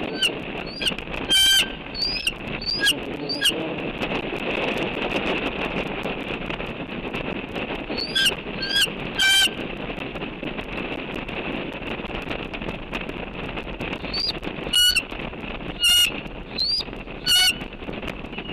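Bird calls: short, rising notes given in three bursts of several calls each, over a steady rush of wind noise.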